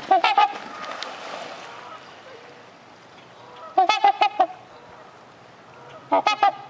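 Trumpeter swans honking in three bursts of short, rapid honks: one at the start, one about four seconds in, and one near the end.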